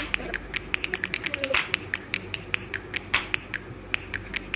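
Thin plastic OHP transparency film handled and flexed by hand, giving rapid irregular clicks and crackles, several a second, over a low steady hum.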